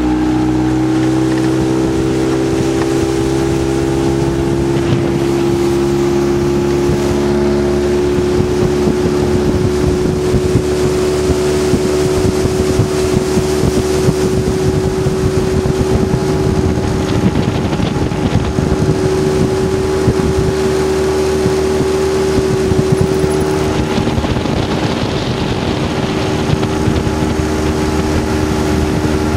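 Honda four-stroke outboard motor running at a steady pitch as the boat travels under way, with wind on the microphone.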